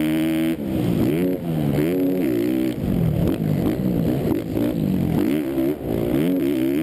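Four-stroke motocross bike engine heard on board at full race pace. It revs up and down over and over as the throttle is worked and gears are changed, dipping briefly now and then.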